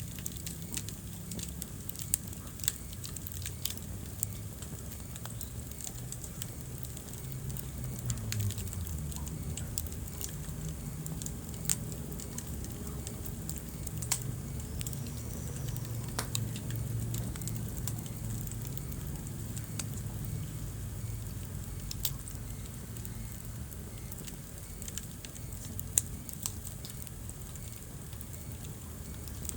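Wood fire burning in a fireplace: a steady low rumble of flames with scattered sharp crackles and pops, a few of them louder, about two seconds in, near the middle and near the end.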